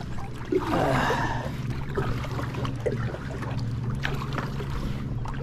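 Water splashing and trickling around a kayak moving through shallow water, with scattered small splashes and knocks, over a steady low motor hum.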